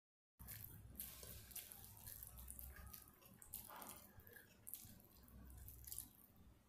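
Fingers mixing and squishing curry-soaked rice on a plate: faint soft squelches and light, irregular clicks, starting about half a second in.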